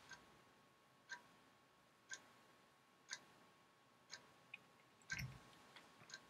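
Near silence with a clock ticking faintly, one tick about every second, and a soft knock about five seconds in.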